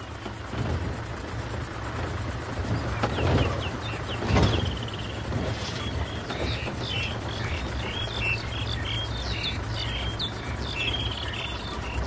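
African bush ambience: a steady high drone of insects, with many short bird chirps starting about five seconds in, over a low rumble. Two brief louder noises come about three and four and a half seconds in.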